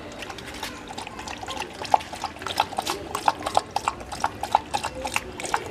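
A dog lapping water from a plastic tub: quick wet laps of the tongue, about three or four a second, growing louder about two seconds in.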